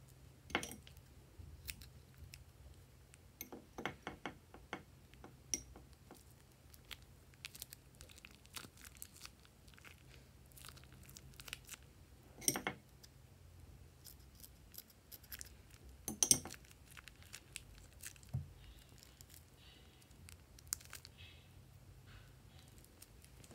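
Thin plastic piping bag crinkling and crackling as it is squeezed and handled, in scattered crackles with a couple of louder ones about twelve and sixteen seconds in.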